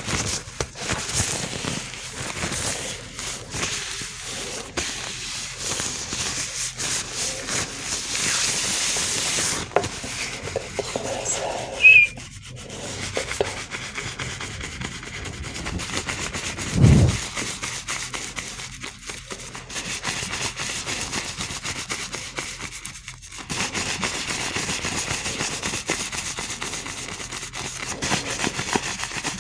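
Gloved hands rubbing and scratching close to the microphone, a continuous rustling scrape with a sharp sound about twelve seconds in and a low thump a few seconds later.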